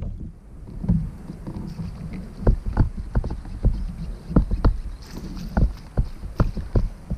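Irregular hollow knocks and thuds on a plastic fishing kayak, mostly coming in pairs about once a second.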